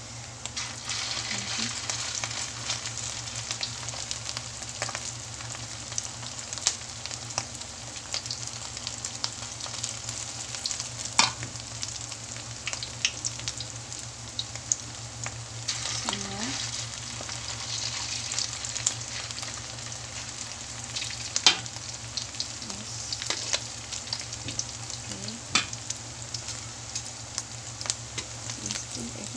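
Alamang (tiny shrimp) patties shallow-frying in a little oil in a metal wok: a steady crackling sizzle, broken by a few sharp pops of spattering oil.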